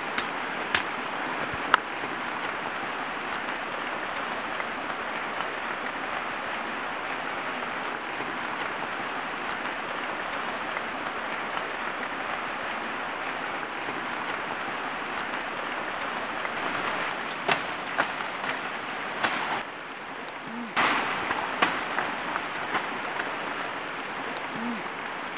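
Steady rushing of a river, with a few sharp clicks and knocks scattered through it.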